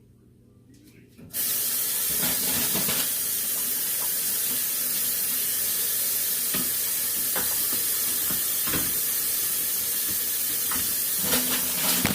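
Kitchen tap turned on about a second in and running steadily into the sink, with a few light knocks.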